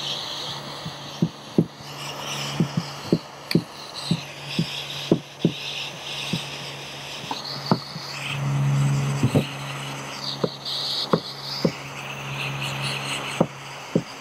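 Handheld gas torch hissing in bursts while a metal tool taps and scrapes at heated polyethylene plastic, giving frequent sharp clicks, one or two a second, over a low steady hum.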